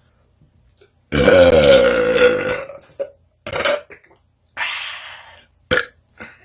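A man's deliberate, loud belch lasting about two seconds, beginning about a second in, followed by a few shorter, quieter sounds.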